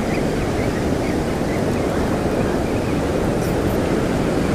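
Steady rush of ocean surf breaking and washing up the beach, with wind on the microphone.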